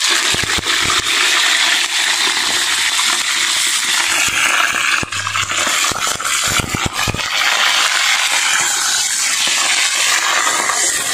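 Yogurt-marinated chicken pieces sizzling loudly in hot oil in a large iron wok as they are dropped in one by one, with sharp crackles and spits from the oil.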